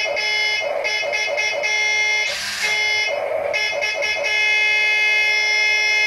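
Electronic horn sound effect of a toy remote-control motorbike, a steady buzzy honk held for several seconds with a brief hiss about halfway through.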